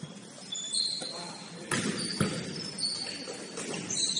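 Sneakers squeaking on a gym court during a basketball game: several short high squeaks, with two thumps of the ball about halfway through.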